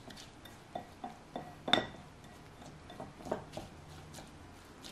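Spatula stirring diced onion in lime juice in a glass bowl: soft scrapes and scattered light taps against the glass, with one sharper, ringing clink a little under two seconds in.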